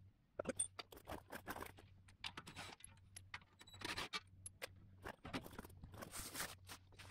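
Quiet clicks, light taps and scraping rustles of hand work under a Jeep, as a steel skid plate is held in place and its bolt holes are marked with a punch, over a faint steady low hum.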